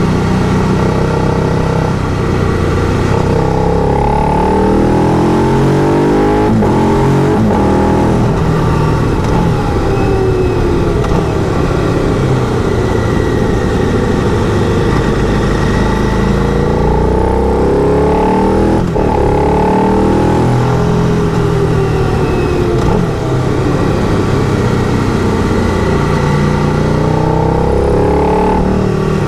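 Motorcycle engine running under way, its pitch climbing and dropping again several times as it accelerates and shifts through the gears.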